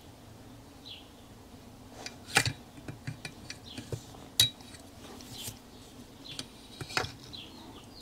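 Light metallic clicks and clinks from a dial bore gauge being worked inside a freshly honed motorcycle cylinder bore, with sharper clinks about two and a half, four and a half and seven seconds in, over a faint steady hum.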